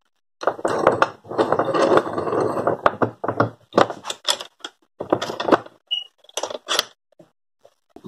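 Metal clatter of a bench vise being closed on a small piece of steel: a dense rattle for about two seconds, then a string of separate sharp knocks and clicks as the handle bar is worked.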